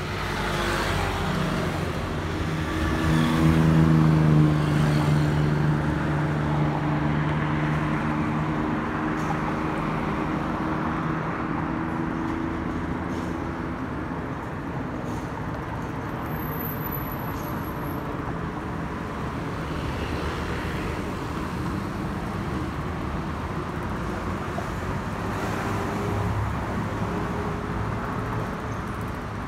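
Boeing 737-800's CFM56-7B turbofan engines passing overhead: a steady jet roar that swells to its loudest about four seconds in, with its engine tone dropping slightly, then fades slowly as the airliner moves away.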